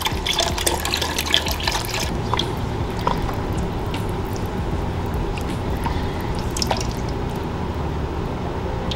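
Chicken broth poured from its container into a pot of tomato sauce, splashing for about two seconds, then a quieter steady noise with a few small clicks and pops.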